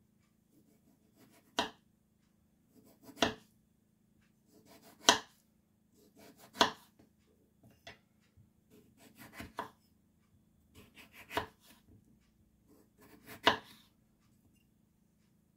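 Kitchen knife slicing peeled potatoes into rounds on a bamboo cutting board. Each cut ends in a sharp knock of the blade on the board, about every one and a half to two seconds, with a softer sound of the blade going through the potato just before each knock.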